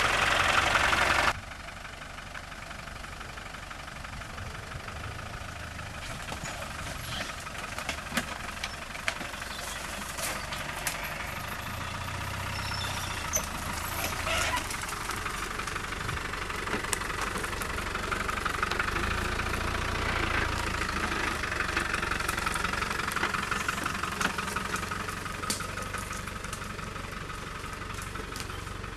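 Land Rover Discovery's 200Tdi four-cylinder turbodiesel engine running at low revs as the vehicle crawls through an overgrown lane, with scattered sharp clicks. A louder rush of noise fills the first second and cuts off suddenly.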